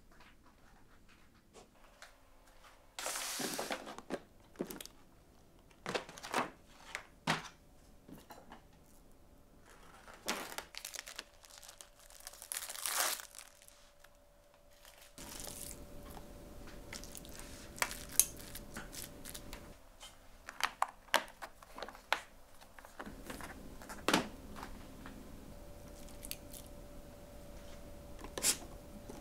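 Plastic packaging film tearing and crinkling, with scattered clicks and knocks of plastic storage containers and their lids as marinated beef is portioned out. A longer tearing sound comes about three seconds in.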